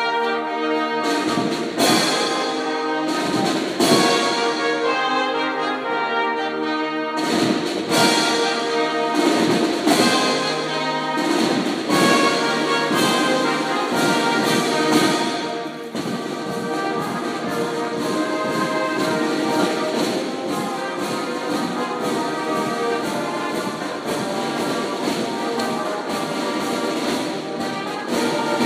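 A brass and drum marching band starts playing. It begins with held brass chords punctuated by heavy drum hits, and from about halfway the drums keep a quick, steady beat under the brass.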